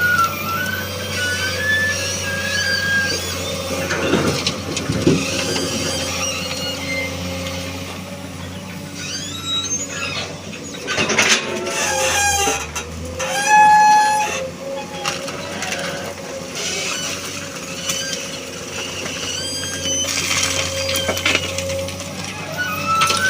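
Excavator engine running steadily under work, with high squealing tones and a few loud knocks and clatters about halfway through.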